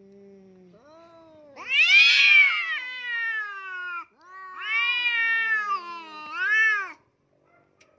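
Cats caterwauling at each other in a hostile face-off: a low drawn-out moan, then two long wavering yowls, the second bending up and down in pitch before it stops about seven seconds in.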